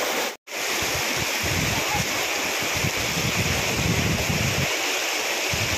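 Fast, swollen river rushing and churning past the bank in a steady wash of water noise. It cuts out for a moment about half a second in, and from about a second in low gusts of wind buffet the microphone.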